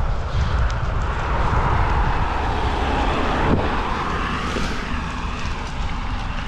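Wind buffeting the microphone during a bicycle ride, with a passing vehicle's noise swelling and then fading away about two to four seconds in.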